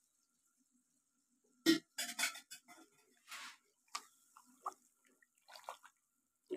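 A wooden spatula stirring chicken stock (yakhni) in a cooking pot: short, scattered splashes and knocks of the spatula against the pot, the loudest about a second and a half in.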